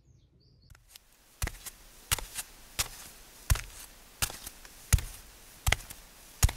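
Faint bird chirps. Then, from about a second in, a steady run of sharp knocks or taps, roughly one every 0.7 seconds, over a light hiss.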